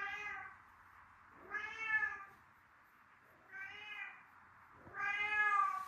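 Domestic cat meowing four times, a drawn-out meow every second and a half or so, the last one the longest.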